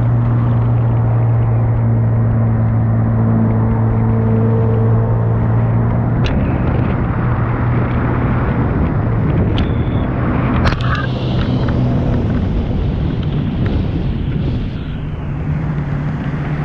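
Sea-Doo Spark Trixx jet ski's three-cylinder Rotax engine running under way, a steady drone for the first six seconds, then changing pitch over a rushing noise, with a few sharp knocks in the middle.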